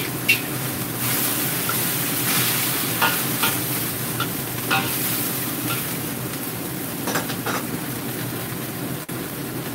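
Mung bean sprouts and garlic chives sizzling in a hot wok, stirred with a spatula that scrapes the wok several times.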